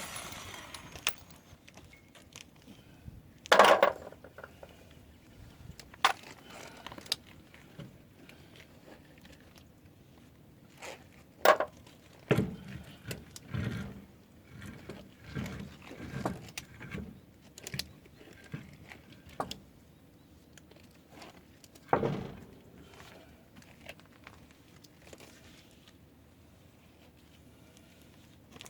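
Scattered metal clinks and knocks of hand tools and parts being handled during brake work under a pickup, with a louder knock about four seconds in, a run of duller knocks past the middle, and another loud knock later.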